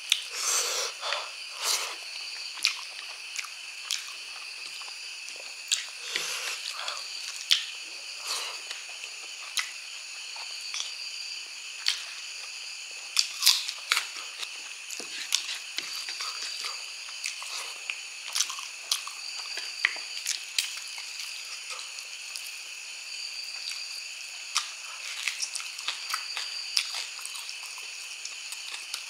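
Close-up chewing and wet mouth smacks of a person eating pork trotter and rice by hand, with short clicks and bites scattered through. A steady high-pitched hum with a short chirp about every two seconds runs behind.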